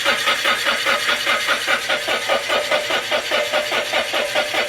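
The engine of an engine-driven welder being cranked by its starter motor, an even rhythmic chugging of about five pulses a second, without catching; the battery is low.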